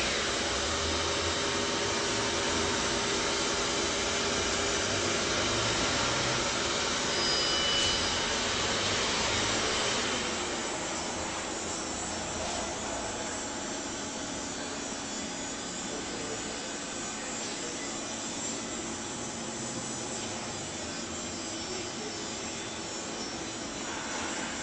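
Xerox DocuColor 250 colour laser printer running: a steady mechanical whir of its fans and paper transport, a little quieter from about ten seconds in.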